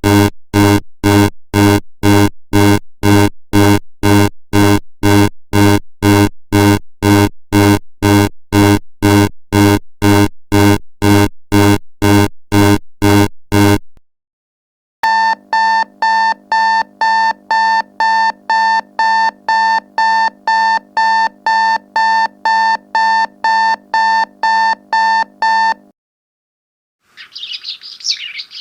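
A string of sound effects. First a low, deep pulsing tone repeats about twice a second. After a brief break a higher, buzzy electronic beep repeats a little faster, like an alarm. Near the end, bird chirps begin.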